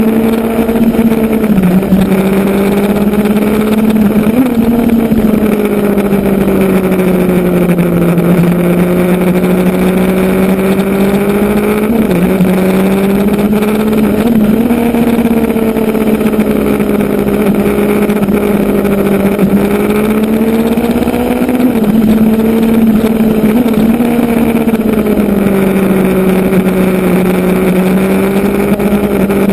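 Motorcycle engine running steadily under way, its pitch slowly rising and falling with the throttle, with a few brief jerks in pitch. Even wind and road noise run beneath it.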